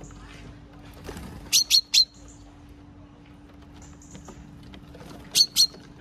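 Small songbirds calling at a seed-feeding spot: sharp, short high calls, three in quick succession about a second and a half in and two more near the end. Fainter thin high whistles come from farther off, over a steady low hum.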